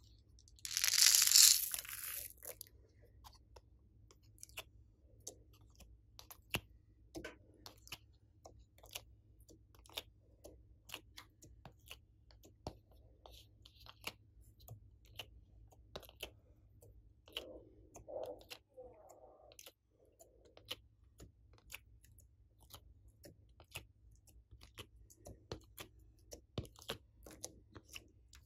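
A brief hiss and rattle as small plastic pearl beads are poured onto slime, then many irregular sharp clicks and soft crackles as coloured pieces are pried out of a plastic tray and dropped onto the slime.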